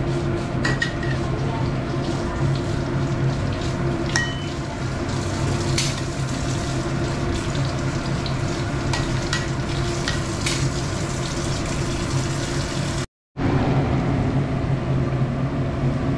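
Vegetable fritter batter deep-frying in hot oil in a wok: a steady sizzle over a low hum, with a few sharp taps and scrapes of a spatula against the wok. The sound cuts out for a moment near the end.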